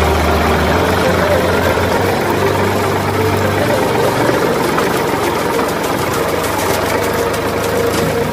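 Water gushing from a metal pipe and splashing onto gravel, over a small motor running steadily; the motor's low hum drops away about three and a half seconds in.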